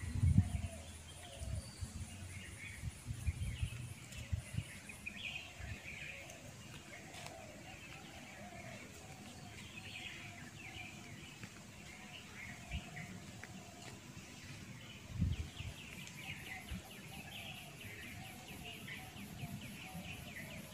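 Several birds chirping and calling on and off, some high and some lower and repeated. Low thumps or rumbles come in the first few seconds and once more about fifteen seconds in.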